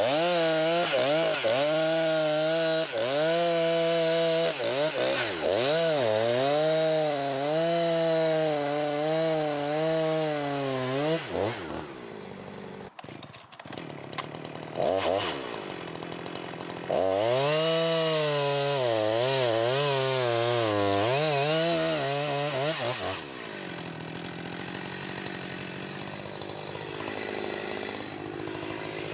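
Chainsaw running at full throttle under load, its pitch wavering as it cuts through wood. It goes for about eleven seconds, drops to a quieter stretch with a few sharp clicks, cuts for another six seconds or so, then falls back to a lower, quieter running.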